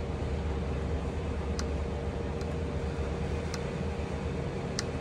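A steady low hum of background machinery, with about four soft clicks of a laptop touchpad button spread through it.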